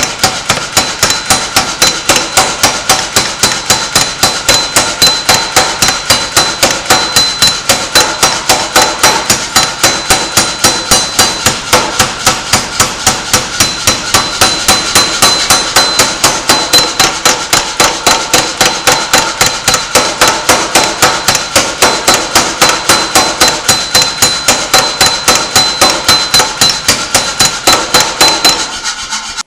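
Hammer blows on copper sheet clamped in a steel bench vise, struck at a fast, even pace of about four blows a second with a high metallic ring. The hammering stops suddenly near the end.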